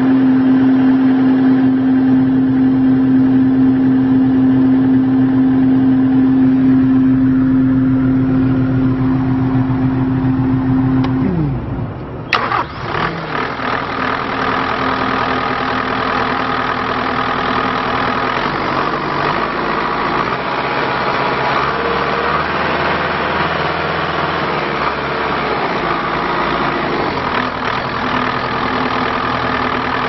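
Bobcat T650 track loader's Kubota diesel engine idling steadily at about 1,200 rpm, heard from the cab. About twelve seconds in, the sound switches to the same engine heard up close through the open rear engine compartment, where it still runs steadily but sounds brighter and noisier.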